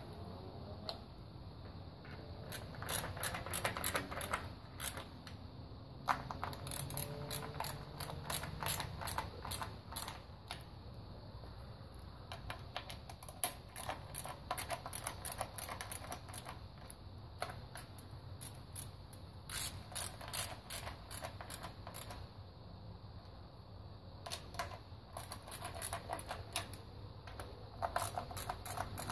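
Hand ratchet clicking as it runs bolts down on an engine valve cover, in several runs of rapid clicks a few seconds long with short pauses between them.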